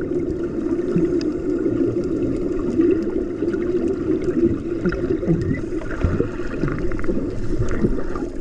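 Underwater water noise heard through a submerged camera: a steady muffled rumble with scattered small clicks.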